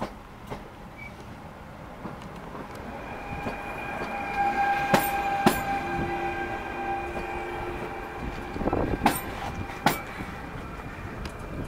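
PKP Intercity ED160 (Stadler FLIRT) electric multiple unit pulling in along the platform, its steady electric whine growing louder, with two pairs of sharp clicks as its wheels cross rail joints.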